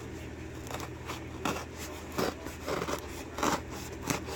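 A padded mailing envelope being opened and handled by hand: a series of short, irregular rustles and scrapes of paper and plastic, over a steady low hum.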